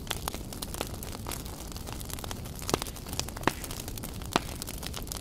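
Wood fire of logs and glowing embers burning with a steady hiss and light crackle, with a few sharp louder pops in the second half.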